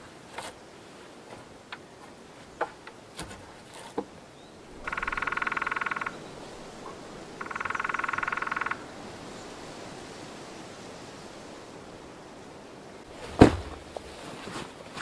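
Two rapid, pulsing trills, each about a second and a half long and a couple of seconds apart, from a calling animal. Scattered light clicks come before them, and a single loud thump comes near the end.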